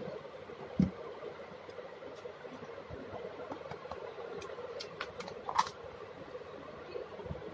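Tabletop handling sounds: a knock about a second in as the slime glue bottle is set down, then a plastic stirrer scraping and tapping in a small plastic cup of slime, with a few sharp clicks in the second half. A steady background hum runs underneath.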